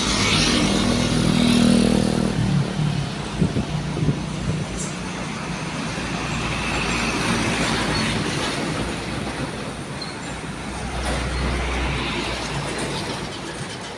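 Ship-horn-style air horn on a road vehicle sounding steadily for about two and a half seconds, then the noise of passing traffic and engines.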